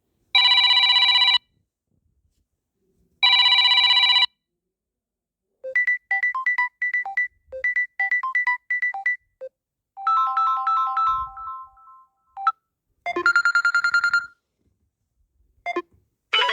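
Phone ringtones played one after another: two electronic ring bursts of about a second each, then a quick run of short beeping notes, then trilling electronic rings.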